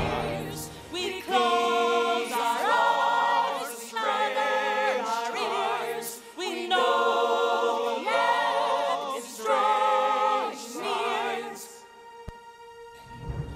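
A small choir singing a cappella in close harmony: a run of short held phrases with vibrato, dying away to a faint sustained tone about twelve seconds in.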